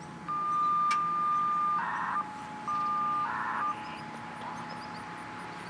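Radio scanner putting out signalling tones: a steady tone with a higher tone over it, broken twice by a short buzzy data burst about a second and a half apart. These are FSK data bursts, the kind of radio signalling used to control the outdoor warning sirens.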